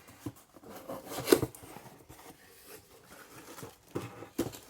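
A cardboard subscription box being opened and its paper contents handled: rubbing and scraping with a few sharp knocks, the loudest about a second in and two more near the end.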